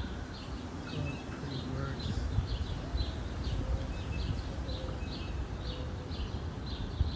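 A small bird chirping over and over in an even rhythm, about two short high chirps a second, over a steady low background rumble.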